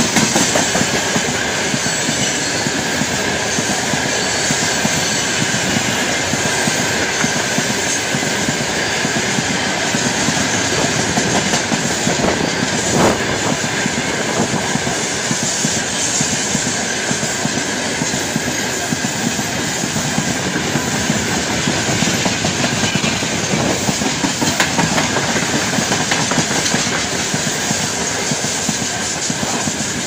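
Open gondola wagons of a long freight train rolling past close by: a steady rumble and clatter of steel wheels on the rails, with one sharper knock about 13 seconds in.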